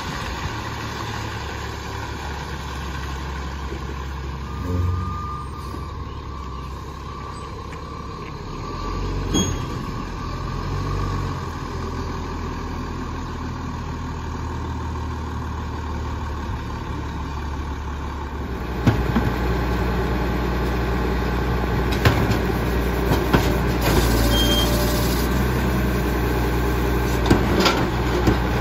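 Crane Carrier garbage truck's diesel engine running at low speed as the truck drives off and circles back. It grows louder about two-thirds of the way through as the truck pulls up close, with a few clanks and a short hiss of air near the end.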